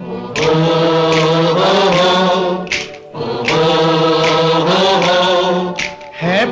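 Background music: a chorus singing long, held wordless notes over a steady low drone, in two long phrases with a short break between them.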